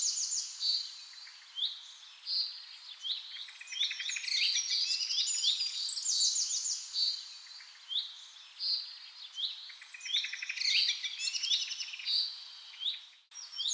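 A songbird singing a long, varied song: phrases of quick down-sweeping whistles mixed with fast trills, coming one after another with short pauses between them.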